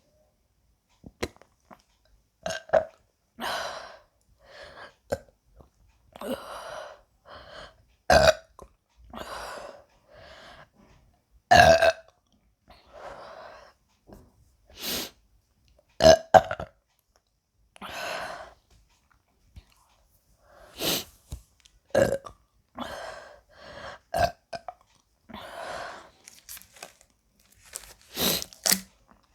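A woman burping over and over, a short burp every second or two, some of them loud, from the gas of chugged Sprite.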